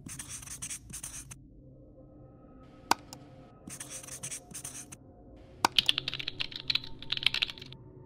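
Felt-tip marker scratching across a writing surface in short strokes. Then, about two-thirds of the way in, a quick run of computer-keyboard typing clicks for about two seconds.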